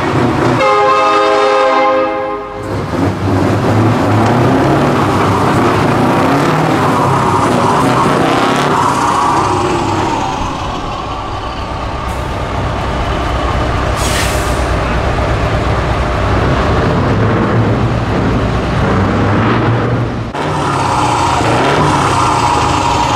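Scania V8 truck engines with open exhaust pipes running loud and revving. A multi-tone air horn sounds for about two seconds near the start.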